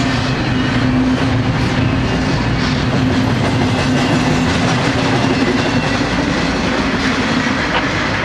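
Long freight train rolling past at speed, its wheels clicking over the rail joints, with a steady low hum that fades in the second half.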